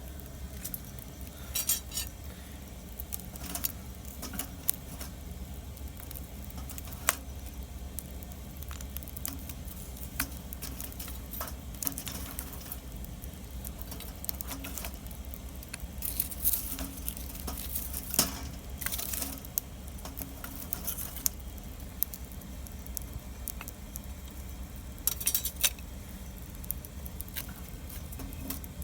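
Wood fire crackling, with irregular sharp pops and snaps and a few short spells of denser crackle.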